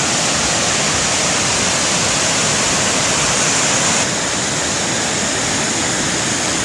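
Steady rushing of a large, powerful waterfall close by, dipping slightly about four seconds in.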